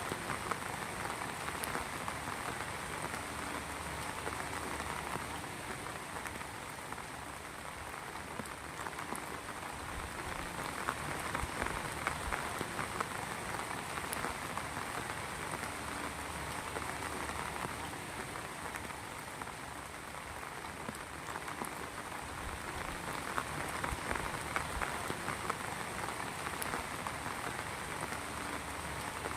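Rain falling steadily: a dense, even wash of countless small drop hits that holds level without letting up.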